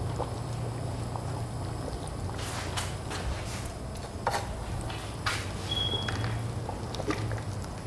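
A large aluminium stockpot of liquid boiling, with a steady low hum underneath, as metal tongs search through it for chicken pieces, clicking against the pot a handful of times.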